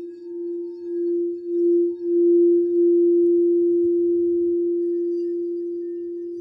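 A singing bowl rubbed around its rim, sounding one steady pure tone that swells in pulsing waves, growing louder over the first two seconds or so, then rings on and slowly fades.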